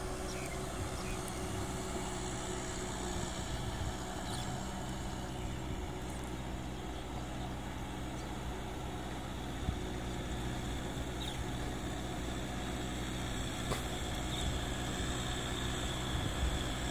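Kubota M6040SU tractor's diesel engine running steadily under load while cultivating a flooded, muddy paddy field, heard from a distance. It grows a little louder near the end as the tractor comes closer.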